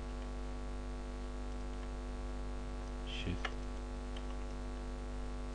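Steady electrical mains hum on the microphone, with a few faint mouse clicks in the second half.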